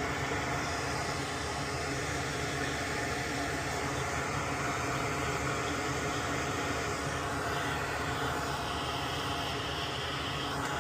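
Steady mechanical hum and hiss, even and unchanging throughout, like a small motor or blower running continuously.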